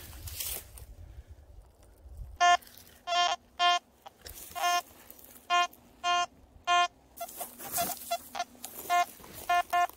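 Quest Q30 metal detector sounding a run of short, high-pitched target beeps as its search coil is swept back and forth over a buried piece of metal, about a dozen irregularly spaced tones starting about two and a half seconds in. A faint steady low tone runs under the beeps.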